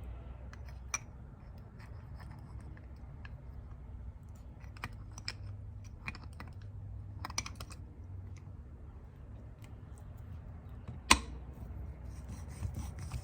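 Scattered light clicks and taps of the automatic locking hub's small metal parts being lined up and fitted together by hand, with one sharper click about eleven seconds in, over a low steady hum.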